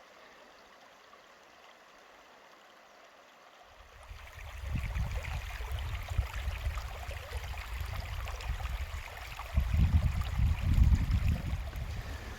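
Near silence for the first few seconds, then a mountain stream running over rocks, with low rumbling that comes and goes and grows louder near the end.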